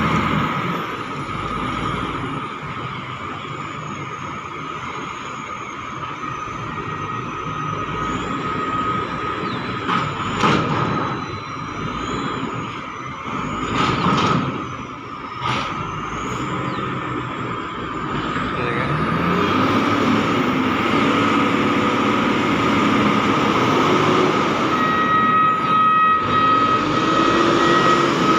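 Heavy diesel engines of a reach stacker and a container truck running, over a steady high whine. A few sharp metal clanks come about ten, fourteen and fifteen seconds in as the reach stacker's spreader handles the container on the truck. In the second half the truck's engine rises and falls in pitch as it pulls away.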